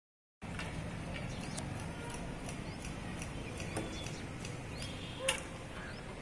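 Outdoor ambience: a steady low rumble with faint scattered ticks and a few short high chirps, and one louder click about five seconds in.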